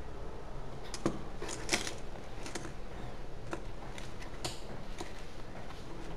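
Light, scattered clicks and clinks of metal coins being picked out of a coin album and handled in a wooden drawer, the sharpest two about a second in and just before two seconds in.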